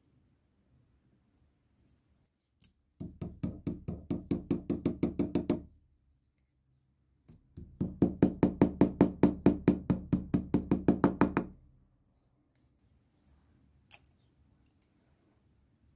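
Small hammer tapping a fixing pin to fasten a metal warning plate onto a power grinder's housing. There are two runs of quick, light taps, about eight a second; the second run is longer and louder.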